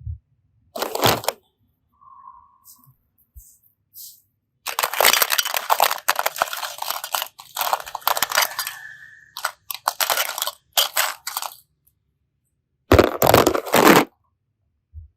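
Crunching and crackling in irregular bursts: a short one about a second in, a long dense stretch through the middle, and another burst near the end, with quiet gaps between them.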